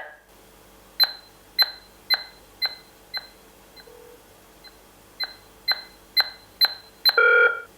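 Smart door lock's keypad beeping at each button press, about two beeps a second, the beeps growing quieter over the first few seconds and then louder again, as the lock's prompt volume is stepped down and back up. Near the end a longer tone of several pitches sounds.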